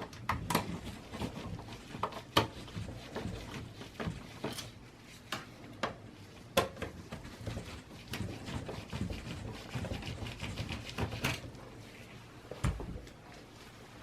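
Irregular light clicks, taps and knocks of a screwdriver and metal parts as screws are taken out of a desktop PC's power supply inside its steel case, with a few sharper knocks and a dull thump near the end.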